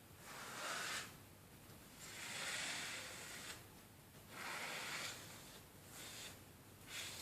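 Plastic card scraping and spreading glue across the face of a jigsaw puzzle, in a series of rubbing strokes, each about a second long, about five in all.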